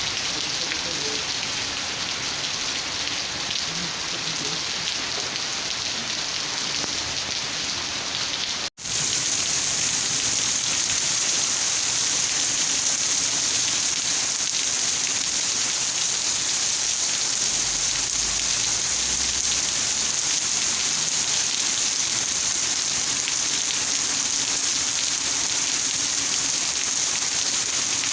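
Steady rain falling, an even patter and hiss. About nine seconds in the sound cuts out for an instant, then carries on slightly louder and hissier.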